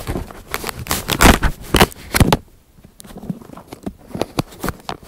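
Handling noise from an iPad being fiddled with in its case: rapid clicks, scrapes and crackles of hands and the case rubbing right on the microphone, easing off for a moment a little past halfway.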